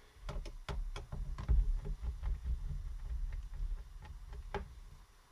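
Hands working on a laptop's open underside to take out its hard drives: a string of irregular light clicks and knocks over low handling rumble, thinning out near the end.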